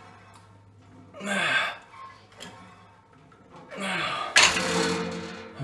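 A man's forceful, gasping exhales while straining through cable triceps pushdown reps: one short breath about a second in, then a louder, longer one near the end, broken by a sharp knock.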